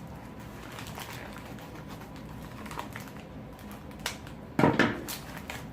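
Handling of a mail package: scattered light clicks and rustles, with a louder crinkling rustle about four and a half seconds in.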